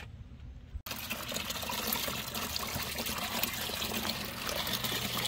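Water trickling and splashing steadily, starting suddenly about a second in, with a low steady hum underneath.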